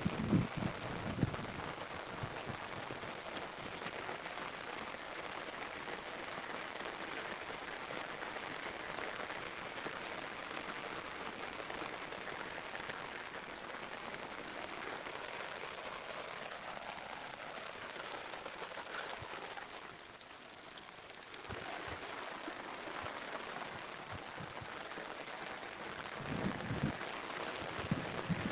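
Steady rain falling, an even hiss that eases briefly about two-thirds of the way through, with a few low thumps near the start and near the end.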